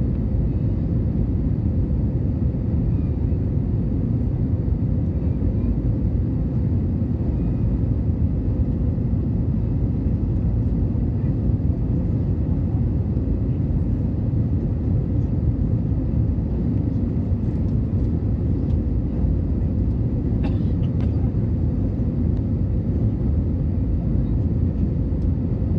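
Airbus A320 airliner in flight: a steady, unchanging low rumble of engines and airflow with a faint steady hum.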